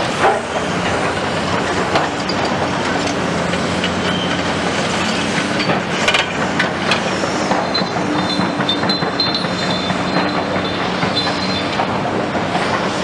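Caterpillar 345 excavator's diesel engine running steadily under load while its bucket scrapes and clatters through concrete rubble. From about eight to twelve seconds a high metallic squeal runs over it.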